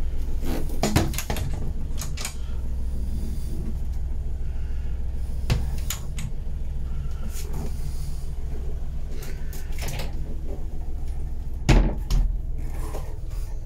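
Wooden cabinet doors being opened and closed by hand, with a series of clicks from push-button catches and latches and the knock of doors shutting. The loudest is a sharp double knock near the end, and a steady low hum runs underneath.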